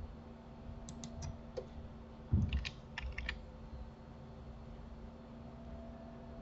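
Computer keyboard keys and mouse buttons clicking sparsely as shortcuts are entered: a few clicks about a second in, then a soft low thump and a quick cluster of clicks around two and a half to three seconds in, over a faint steady hum.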